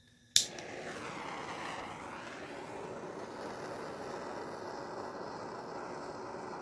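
Handheld propane torch lit with one sharp click of its igniter, then its flame hissing steadily.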